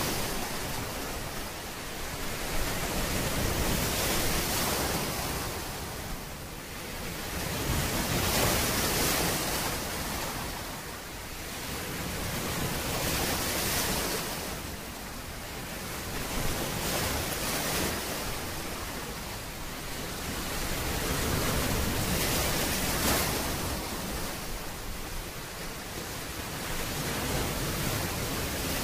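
Ocean surf sound effect: waves washing in and drawing back, swelling and fading about every four to five seconds.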